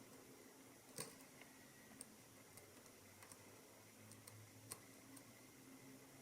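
Faint, irregular light clicks of a lock pick working the pin stacks of a Mul-T-Lock MT5+ high-security cylinder, about seven ticks spread unevenly, the sharpest about a second in.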